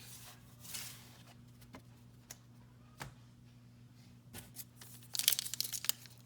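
Foil wrapper of a hockey card pack crinkling and tearing, loudest about five seconds in, after a few light clicks of cards being handled.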